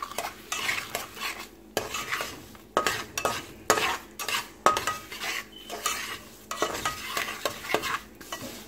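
Semolina being stirred and scraped around a pan as it roasts in hot ghee, with a stroke about once a second over a light sizzle.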